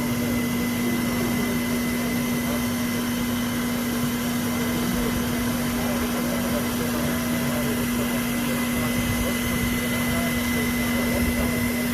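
Handheld plastic welding extruder running steadily, its drive motor and hot-air blower making an even rushing noise with a constant low hum and a high whine.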